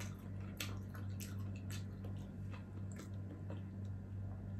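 Close-miked chewing of steamed okra: short wet mouth clicks about twice a second, over a steady low electrical hum.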